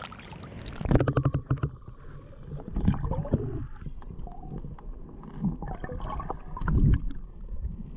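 Muffled, gurgling river water with irregular dull knocks and sloshes, the high end dulled from about a second in.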